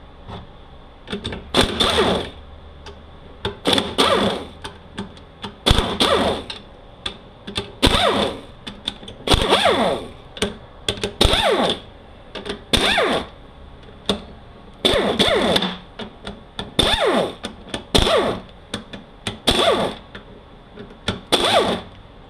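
Air ratchet running out the valve-body bolts of a Honda MRVA automatic transmission, in about a dozen short bursts a second and a half to two apart. Each burst is a quick whine that changes pitch as a bolt spins loose.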